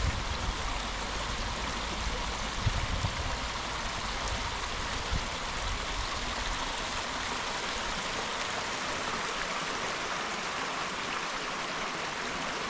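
A small woodland creek flowing over rocks and debris: a steady, even rushing babble of water, with a few soft low thumps in the first few seconds.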